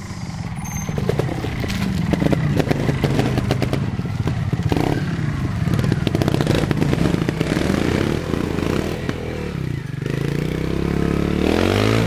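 Trials motorcycle engine running under changing throttle as the bike climbs over obstacles, with clatter and knocks from the chassis and the ground. Its pitch dips briefly and then climbs as the throttle is opened near the end.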